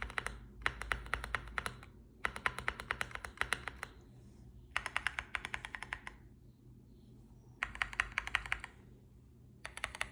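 Mechanical keyboard with Gazzew Boba U4T tactile switches being typed on in short bursts of rapid keystrokes with brief pauses between. Each key clacks as it springs back and tops out, the topping-out noise taken for a fault in the switches.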